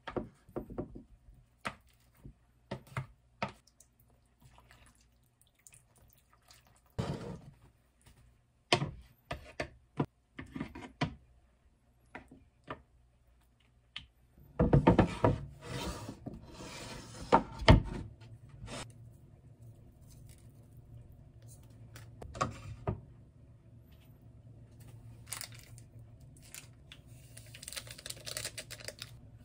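Light knocks and scrapes of a wooden spoon working cooked instant rice out of a plastic microwave-rice tray into a wooden bowl. About halfway through, louder clattering and rubbing as metal tongs handle grilled marinated beef short ribs on a wooden board, followed by a faint steady hum; near the end, a crackling hiss as a drink-mix stick packet is torn open.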